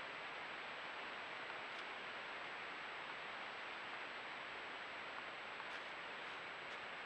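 Steady hiss from a trail camera's microphone with a faint, high, steady electronic whine. A few soft ticks come in the last second or so.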